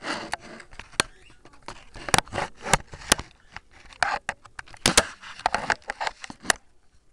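Handling noise: irregular sharp clicks and taps with bits of scraping, as a camera and a click pen are fumbled with in the hands.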